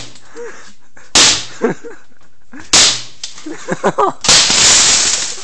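A golf putter striking a microwave oven: two sharp hits about a second and a half apart, then a longer crash lasting about a second as the microwave finally breaks, with glass shattering.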